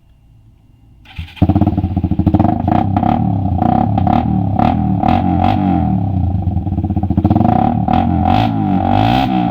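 Suzuki Raider 150 single-cylinder engine with a straight open-pipe exhaust, starting about a second in and then running loud and uneven, its pitch rising and falling with throttle, with many short sharp cracks through it.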